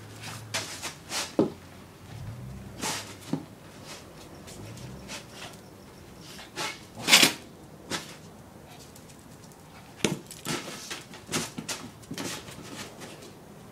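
A small dog playing roughly with a large ball on concrete: a series of knocks and scrapes as the ball is bumped and pushed, the loudest about seven seconds in, with low growling in the first few seconds.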